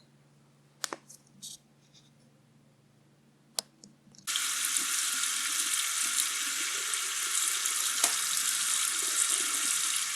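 A few light clicks, then about four seconds in a kitchen tap is turned on and runs steadily, water for rinsing the popcorn kernels before cooking.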